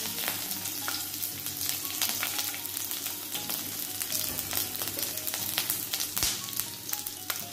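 Slit green chillies, curry leaves and mustard seeds sizzling in hot coconut oil in a kadai: a steady hiss with frequent small crackles and pops.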